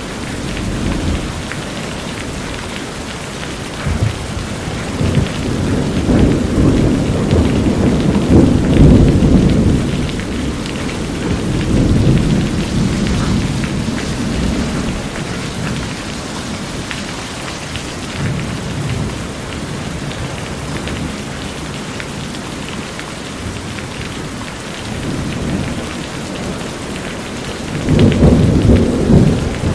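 Steady rain falling on a corrugated metal house roof. Thunder rumbles twice: a long roll from about four to thirteen seconds in, and a shorter one near the end.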